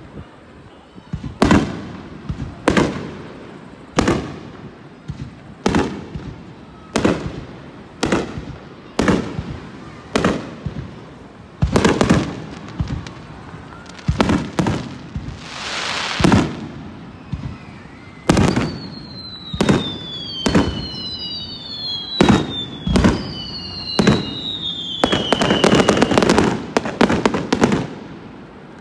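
Aerial fireworks shells bursting in a steady series of sharp bangs, about one a second. About halfway through comes a hissing swell, then several falling whistles, and near the end a dense run of rapid crackling bangs.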